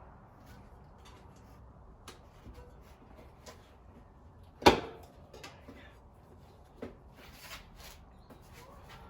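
Hands-on handling noises during a bike tire repair: scattered light clicks and rustles, with one loud, sharp knock or snap about halfway through that rings briefly.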